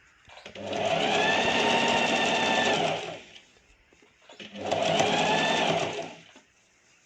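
Sewing machine stitching in two runs, the first about two and a half seconds long and the second shorter, each starting and stopping smoothly, sewing a line of thread piping.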